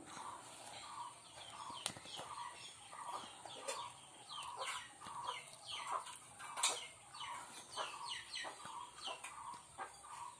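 Chickens calling: a steady run of short clucks about twice a second, with many quick falling chirps over them and a few sharp clicks.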